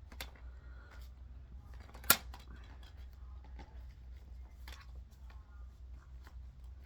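Plastic DVD keep case being handled, with small clicks and one sharp, loud snap about two seconds in, as of a disc coming off its hub or the case clicking shut. A steady low hum runs underneath.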